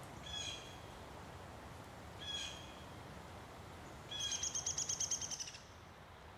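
Bird calls: two short, high calls about two seconds apart, then a rapid rattling series of about ten notes a second lasting about a second and a half.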